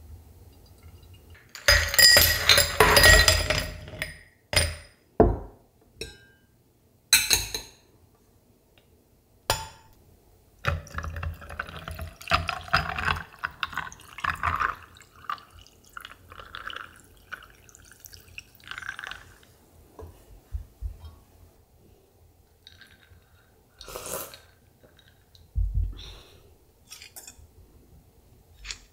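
Ice cubes clinking against a tall drinking glass, loudest in a rattling cluster near the start, then brewed coffee poured over the ice, with more scattered clinks afterwards.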